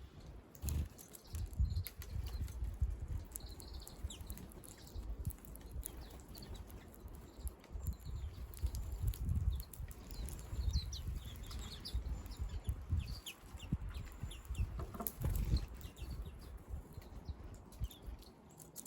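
Small wild birds chirping in short, scattered calls, with a louder call about fifteen seconds in, over an irregular low rumble.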